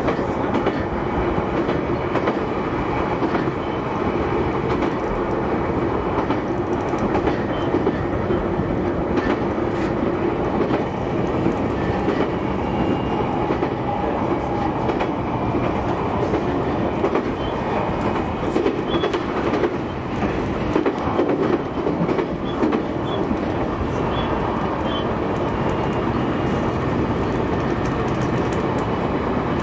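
JR E131 series 600 subseries electric train running along the line: a steady rumble of wheels on rail, with scattered clicks over the rail joints.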